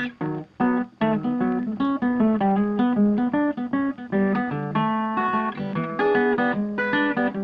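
Background music: a guitar plucking a quick run of single notes.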